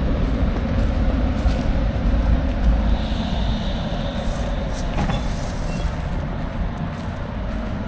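Coupled tram set running along the track, with a steady low rumble of wheels on rail and motors. A high squeal sets in about three seconds in and lasts just over a second, and a sharp click comes near five seconds.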